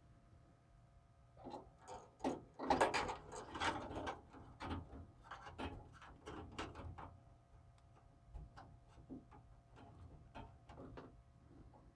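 Small screwdriver turning motherboard screws in a PC case: a run of small metal clicks and scrapes that is densest a couple of seconds in and thins to scattered ticks toward the end.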